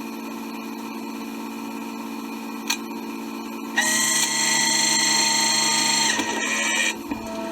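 Tow truck's hydraulics running over a steady idling hum. About four seconds in, a loud high whine starts suddenly, holds for about two seconds, drops lower, and cuts off just before seven seconds.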